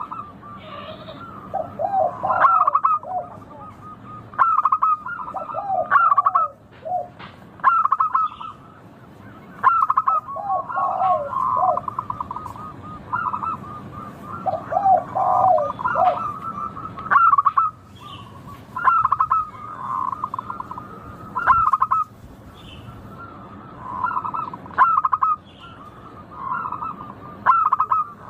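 Zebra doves (perkutut) cooing over and over. Each phrase runs a second or two, made of quick, rolling trilled notes, and a new phrase starts every couple of seconds. Some phrases are pitched lower than others.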